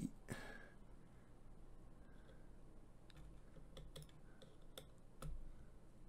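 Faint, scattered small clicks and ticks of fingers working a delicate ribbon cable and its plastic connector loose beside a laptop-size hard drive.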